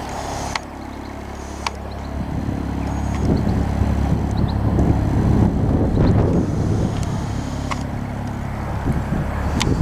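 Pair of Class 47 diesel locomotives hauling a train away, a low engine drone that builds over the first few seconds and then holds, with wind buffeting the microphone at the start.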